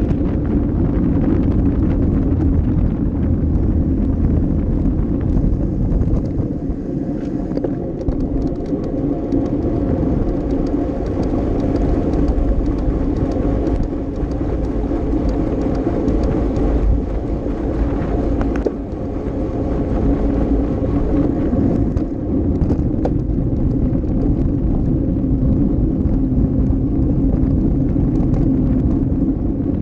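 Wind rushing over a handlebar-mounted camera's microphone and road-bike tyres rumbling on the street at racing speed, a continuous loud rushing noise with a steady low hum under it.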